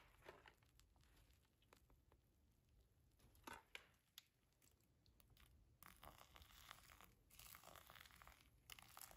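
Very faint sounds: a few soft clicks, then from about six seconds in a faint hiss of hot water poured from a kettle onto coffee grounds in a paper filter dripper.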